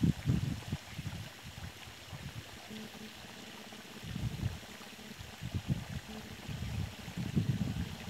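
Wind buffeting the microphone in irregular low rumbling gusts, strongest at the start and again near the end.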